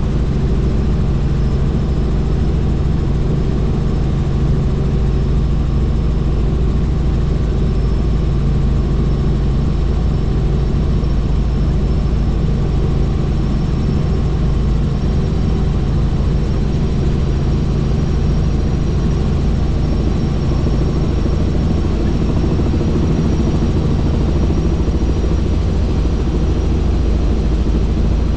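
Helicopter in steady flight: a constant drone of rotor and engine with a faint high whine over it.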